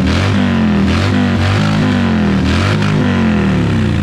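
Music track with a melodic phrase repeating about once a second over a steady low bass line.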